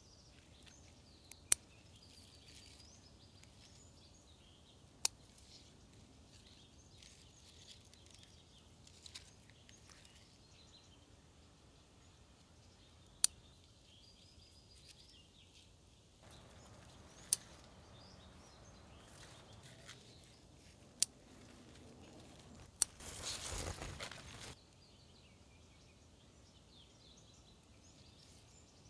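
Faint outdoor ambience with birds chirping, broken by six sharp clicks spaced a few seconds apart, then a louder rustle lasting about a second and a half.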